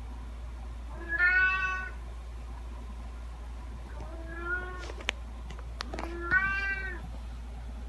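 Domestic cat meowing three times, a couple of seconds apart, with a few short clicks between the second and third meow.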